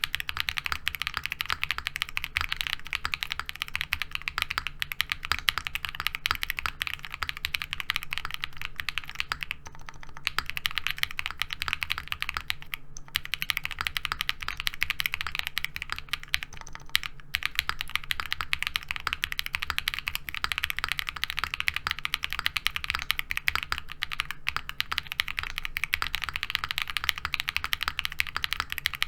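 Fast, continuous typing on a Qwertykeys QK60 aluminium-cased keyboard with hand-lubed KTT Rose linear switches and PBT keycaps: a dense run of key clacks, broken by brief pauses about ten, thirteen and seventeen seconds in.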